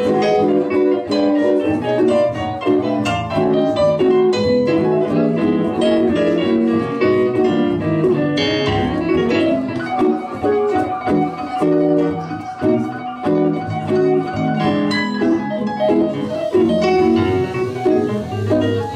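Live jazz guitar and electric stage keyboard playing an instrumental passage of a swing standard, a busy stream of plucked guitar notes and keyboard chords.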